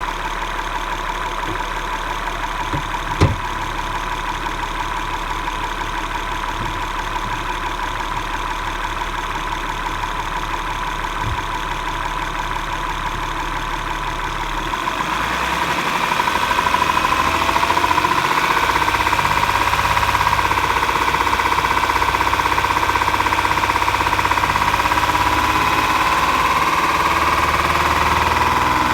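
2011 Acura MDX's V6 engine running with the knocking and ticking that the owner is trying to show. A single sharp click comes a few seconds in, and about halfway through the engine sound grows louder and its whine shifts in pitch.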